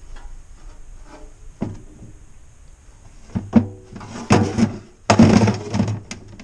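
Hollow plastic knocking and clattering as a cut plastic toilet shell is pushed and worked down over a square plastic bucket. A few light knocks come early, then sharper thunks about three and a half seconds in and a longer, louder clatter near the end.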